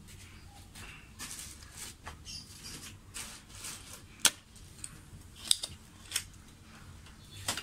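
Spring-loaded desoldering pump (solder sucker) at work on a circuit board's solder joints: scratchy handling noises, then a sharp loud snap about four seconds in as the plunger fires to suck up the molten solder, followed by a few lighter clicks.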